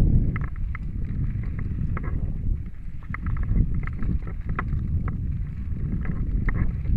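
Mountain bike riding fast over a dirt singletrack: a steady low rumble of tyres and wind buffeting the microphone, with irregular clicks and rattles from the bike as it jolts over bumps.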